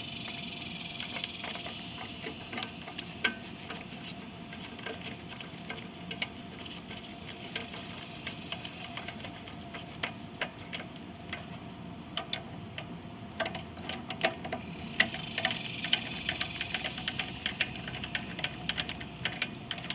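Socket ratchet clicking in irregular runs as the carburetor's two mounting bolts are run down on a Briggs & Stratton Quantum mower engine, the clicks coming thicker in the last few seconds.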